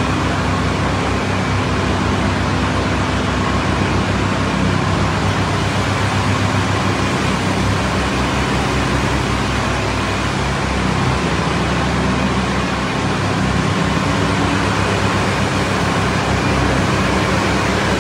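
Pressure washer running steadily: a constant engine drone under an even, broad hiss.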